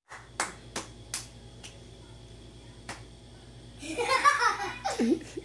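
Children's hand claps in a clapping game: four quick sharp claps in the first two seconds and one more about three seconds in. A child's voice and giggling follow near the end.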